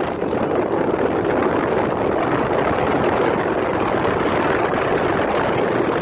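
Steady rushing noise of a moving vehicle, wind and road noise with no clear engine tone.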